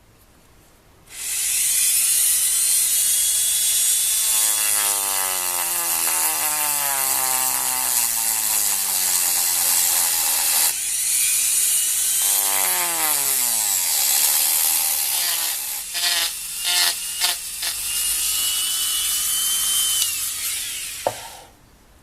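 Wooden marble run machine running: marbles rolling and rattling along wooden tracks in a steady clatter, with twice a whirring tone that falls in pitch and a run of sharp clicks later on. It starts about a second in and cuts off suddenly near the end after a single knock.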